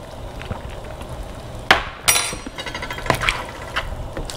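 A cooking utensil knocking and clinking against a pan: one sharp knock a little under two seconds in, then a ringing clink and a few lighter taps.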